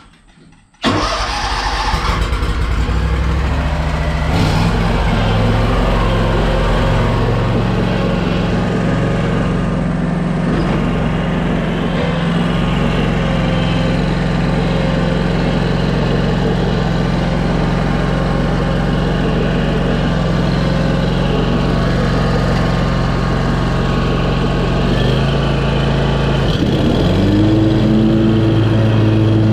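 Scag V-Ride II stand-on mower's engine running steadily; it comes in suddenly about a second in. Near the end its note dips, then climbs to a higher steady pitch.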